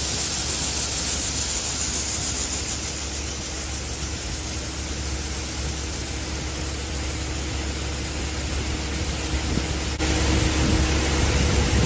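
A heavy engine running under a steady rushing noise. About ten seconds in the sound changes abruptly and gets louder, and a steady hum joins the rumble.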